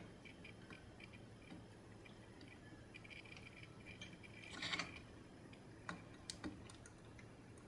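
Faint ticks and small clicks of fingers fiddling with a tiny antenna cable connector on a mini PCIe Wi-Fi card. A short cluster of clicks comes about four and a half seconds in, then a couple of single ticks.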